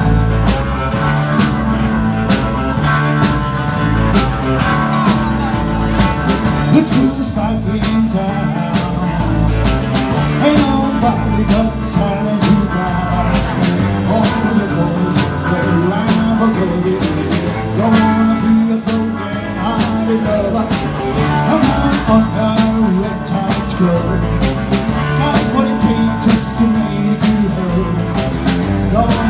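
Live rock and roll band playing: electric guitars and a drum kit keeping a steady beat, with a man singing at the microphone.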